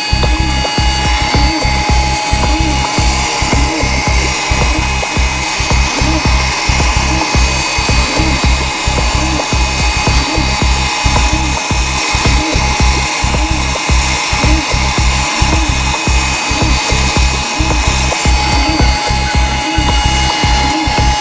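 Background music with a steady clicking beat over a held high tone.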